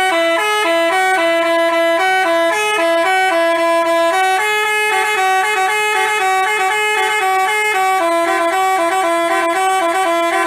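Telolet musical bus horn of the Basuri type playing a fast tune, its pitch stepping between a few notes several times a second.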